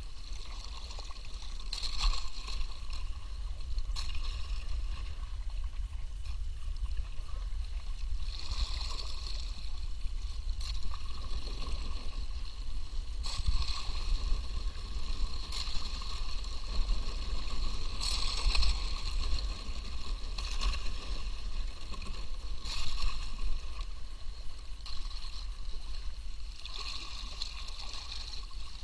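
Double-bladed kayak paddle strokes in the water, a splash and drip about every two seconds, over a steady low rumble.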